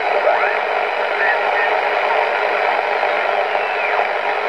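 Audio from a BC-348-N World War II aircraft shortwave receiver being tuned across a band: steady static hiss, with faint whistles sliding up and down in pitch as the dial passes signals, near the start and again near the end.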